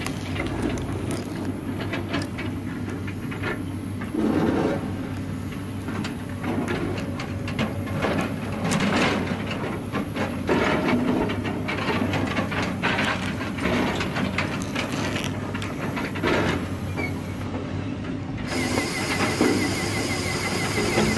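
Small electric motor and gear train of a motorized cardboard model tractor running, a steady hum with irregular clicking and knocking from the mechanism.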